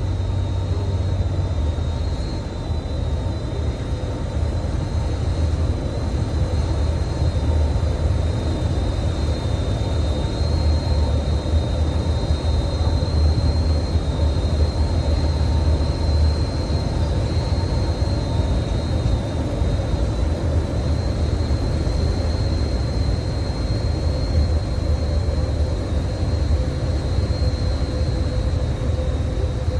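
Steady engine and propeller drone inside the cockpit of a small propeller airplane, with a thin high whine running over it.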